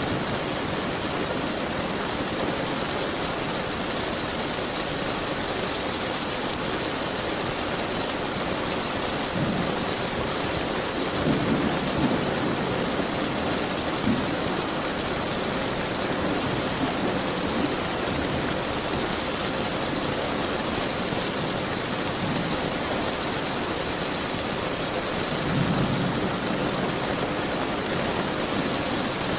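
Steady heavy rain falling, with low rolls of thunder swelling about a third of the way in and again near the end.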